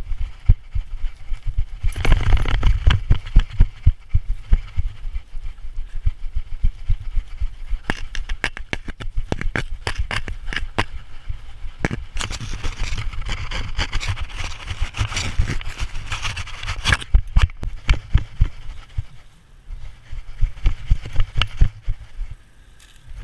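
Handling noise from a GoPro mounted on a walking dog: irregular knocks and rubbing as the dog moves, with the metal leash clip on its harness rattling. Stretches of rushing noise come a couple of seconds in and again from about midway.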